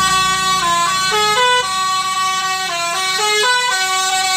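Bus telolet horn playing a multi-note tune: loud, clear horn notes that jump from pitch to pitch every fraction of a second, repeating the melody.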